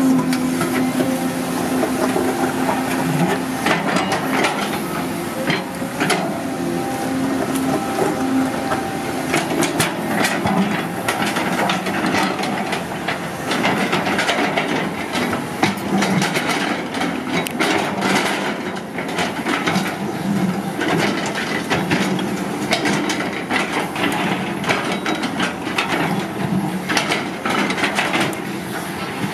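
Caterpillar 320D GC hydraulic excavator working: its engine and hydraulics run steadily under load while the steel bucket digs into, drags and spreads soil and rocks, giving frequent clanks, knocks and scraping.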